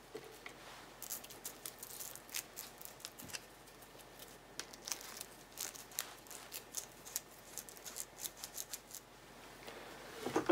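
Small M16 cleaning brush scrubbing Hoppe's solvent into carbon-fouled threads on an M1 rifle barrel: faint, short scratchy strokes at an irregular pace. A louder rubbing comes near the end as a cloth wipes the barrel.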